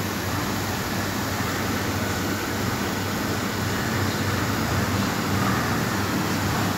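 Dairy processing plant machinery running with a steady low hum and an even whirring noise.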